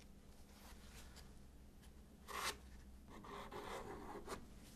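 Plastic squeegee scraping thick epoxy filler across a fibreglass hull panel, faint. One short scrape comes about halfway through, then a longer, softer scraping with a small click near the end.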